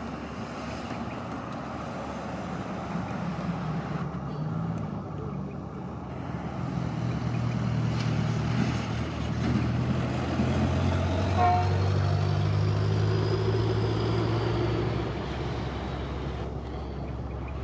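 Coal hopper wagons rolling past on the rails, a steady rumble of wheels on track that swells through the middle, with a thin high squeal arching over it in the middle.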